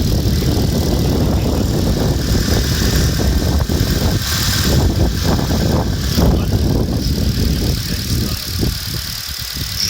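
Ford Fiesta 1.4 petrol engine idling, with irregular ticks and knocks over a steady low running sound, getting somewhat quieter about eight seconds in. The owner hears it as a metallic ticking and wonders whether loose belts are the cause.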